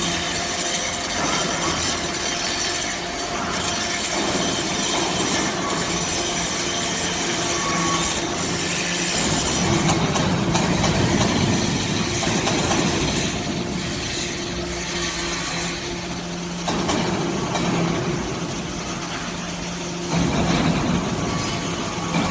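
Hydraulic scrap metal baler running: a steady hydraulic pump hum with harsh metal scraping and grinding over it, easing off a little about two-thirds of the way in and picking up again near the end.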